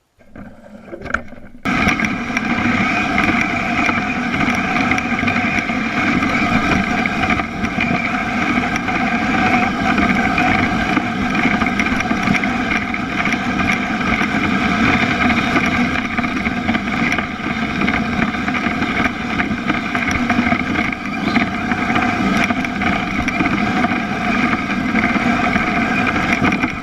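A motor running steadily at a constant speed, with a layered hum that holds the same pitch throughout. It starts suddenly about two seconds in and cuts off abruptly at the end.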